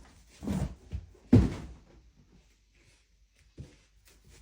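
A large cardboard box being handled: a short rustle, then a loud thump about a second and a half in, and a lighter knock near the end.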